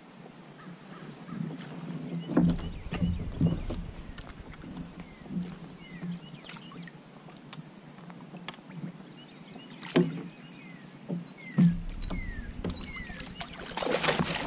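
Scattered knocks and bumps of fishing gear and the boat being handled on the water, with a burst of splashing near the end as a bass strikes the lure.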